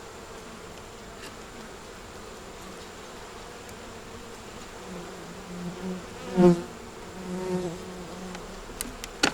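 Honey bees buzzing around an open hive, a steady hum with individual bees flying close past the microphone; the loudest passes about six and a half seconds in. A couple of sharp clicks near the end.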